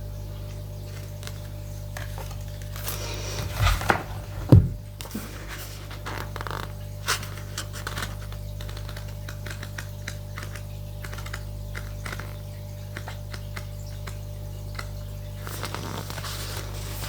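Small clicks, taps and scrapes of objects being handled, with a couple of louder knocks about four seconds in, over a steady low hum.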